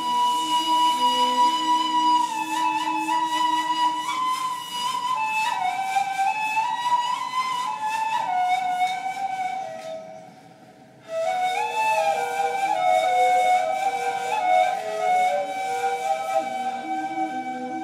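Two neys, end-blown cane flutes, improvising long held notes that step and slide between pitches, at times sounding together. About ten seconds in the sound fades out briefly, then the playing resumes.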